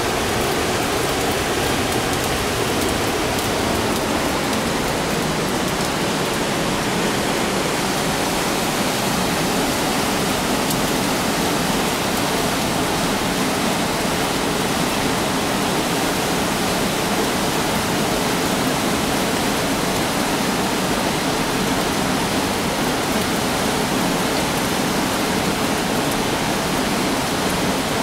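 Mountain river rushing over rapids and small cascades in a rocky gorge: a steady, unbroken rush of water.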